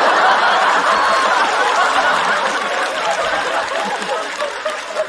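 Studio audience laughing, loudest at first and slowly dying down.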